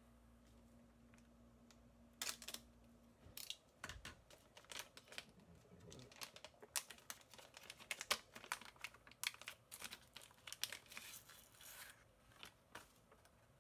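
Clear plastic bag crinkling and tearing as it is worked open and a small cardboard-and-plastic box is pulled out of it: irregular crackles, busiest in the second half.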